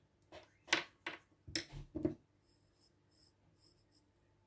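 Pencil sketching on paper: about five quick scratchy strokes in the first two seconds, then only faint, light scratching.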